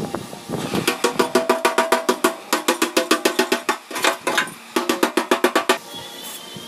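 Rapid light hammer taps on the thin sheet-steel fuel tank of a Bajaj Platina, about seven a second in several runs with short breaks, each tap ringing the metal. This is the newly welded bottom panel being tapped into shape during a leak repair.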